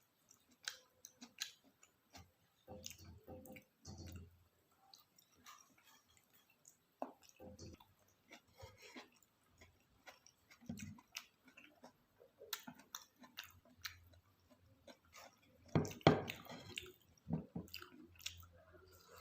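A person eating and chewing a meal: irregular wet mouth smacks and small clicks, with a louder cluster of chewing sounds near the end.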